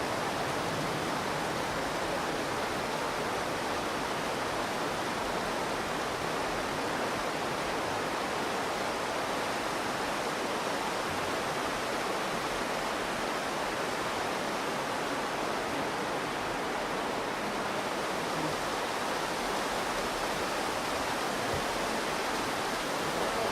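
The Virgin River flowing: a steady, even rush of water.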